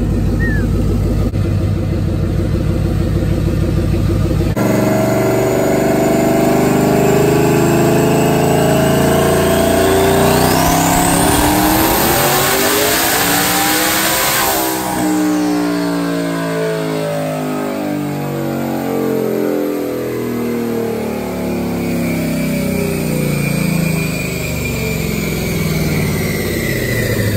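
S550 Ford Mustang making a pull on a chassis dyno. A steady engine note at first; from about five seconds in, the revs climb with a rising whine to a loud peak around halfway, then fall away over the second half as the engine and dyno rollers wind down.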